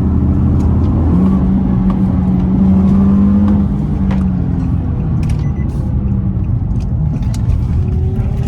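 Infiniti G37's V6 engine running as the car drives, a steady hum that grows louder for a couple of seconds about a second in.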